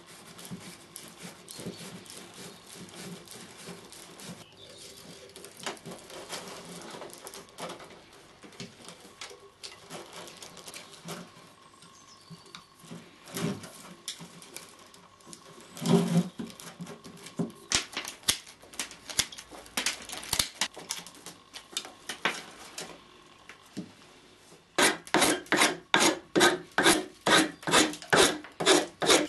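Birch twigs rustling and scraping as they are gathered into a brush head. Then comes a thump and a run of sharp ratchet-strap clicks as the bundle is cinched tight. Near the end there is a fast, even series of loud cutting strokes, about three a second, as a cherry-wood handle is shaved with a blade.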